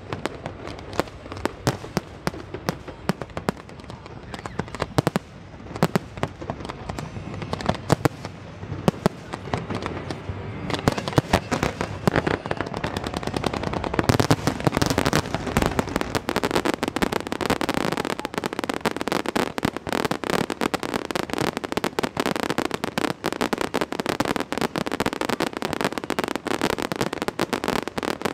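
Fireworks display: a rapid, continuous run of bangs and crackling reports that grows denser and louder about halfway through.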